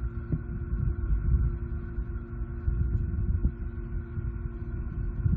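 Wind buffeting the microphone: a low, uneven rumble, with a steady faint hum underneath.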